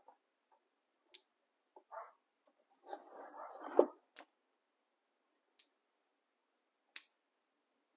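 Sharp plastic clicks from a small inline lamp cord switch being handled, four in all, the last three about a second and a half apart. A stretch of rustling and handling noise comes just before the loudest click, about four seconds in.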